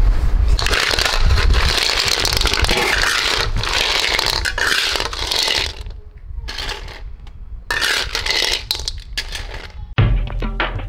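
Snail shells clattering and scraping against one another and a metal wok as they are handled. A dense rattle for about six seconds, then scattered clicks.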